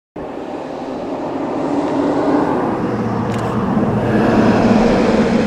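A motor vehicle going by: a steady rush of engine hum and tyre noise that builds to a peak about four seconds in and then begins to fade.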